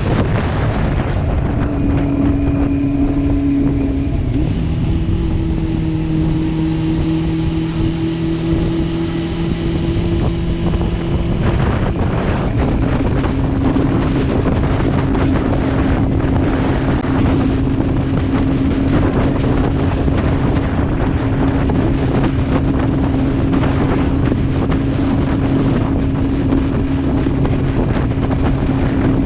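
Motorcycle engine running steadily under way, with heavy wind buffeting on the microphone; the engine note shifts pitch about 4 and 12 seconds in.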